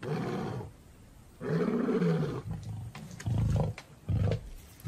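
Male lion roaring: a long roar about a second and a half in, followed by a series of shorter, deeper grunts. It is a territorial roar that announces the pride male's location, prowess and ownership of the territory.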